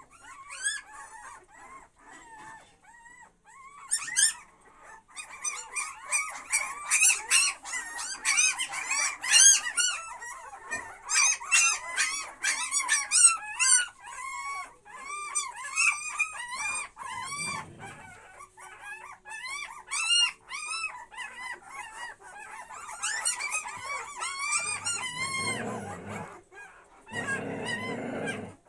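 A litter of young puppies whining and yelping together: many high-pitched squeaky cries overlap several times a second. Near the end come a few rougher, lower sounds.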